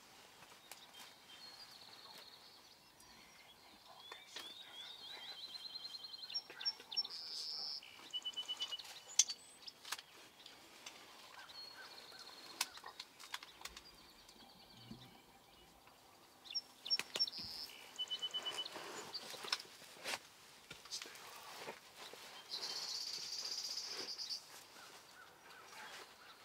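Songbirds singing: a short song of quick high notes and a buzzy trill recurs three times, with other chirps and trills between.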